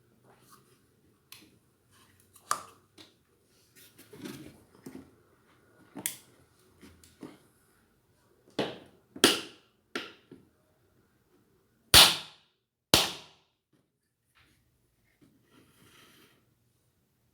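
A string of sharp knocks and clicks from ceiling fan parts being handled and fitted, with the two loudest knocks about a second apart near the end.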